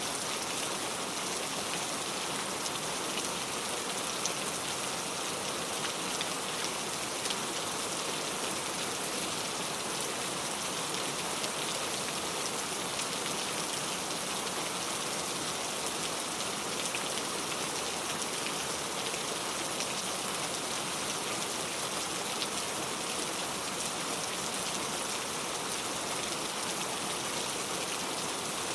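Steady rain falling, an even hiss of many drops with scattered faint drop ticks.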